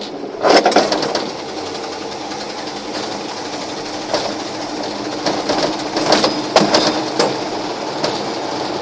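Small-block V8 of a 1988 one-ton pickup running as the truck pulls away in first gear, heard from inside the cab, on a cold engine. A steady drone is broken by repeated clattering and knocking from the body and cab over a rough ride.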